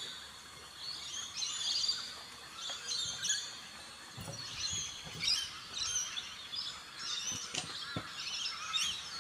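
Several wild birds chirping and calling in quick, overlapping phrases, with a few dull knocks from hands-on work at the camper trailer about four seconds in and near the end.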